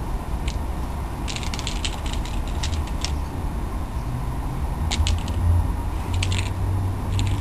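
A small hand-held cat toy rattling in short bursts of quick clicks as it is shaken, over a steady low rumble.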